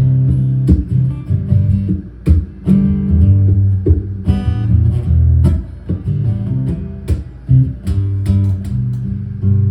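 Acoustic guitar strummed in an instrumental passage of a slow song, sharp strokes ringing over sustained low notes.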